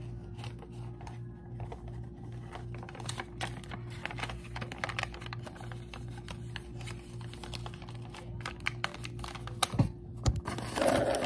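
Stiff paper rustling and clicking as a folded paper piggy bank is handled, over a steady low pulsing hum. A couple of knocks about ten seconds in as a hand bumps the phone.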